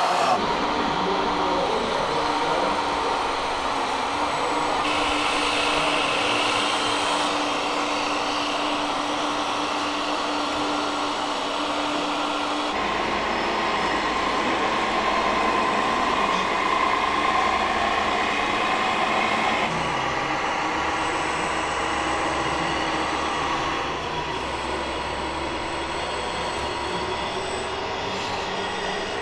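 Radio-controlled scale model vehicles running, with a steady motor whine. About halfway through the sound changes abruptly to a lower, steady hum.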